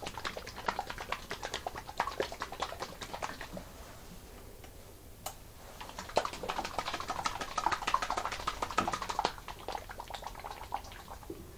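Motor oil glugging out of a bottle as it is poured, in two spells of quick, irregular gulps separated by a short pause.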